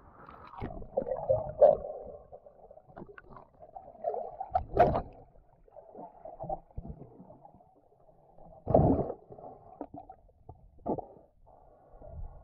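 Muffled water sloshing and gurgling heard through a submerged camera housing while snorkelling, with louder surges every few seconds.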